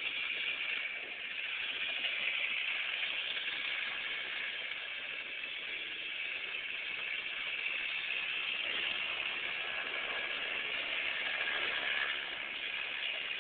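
Kid kart's small engine running as the kart laps at a distance, a steady buzz whose pitch drifts slightly up and down.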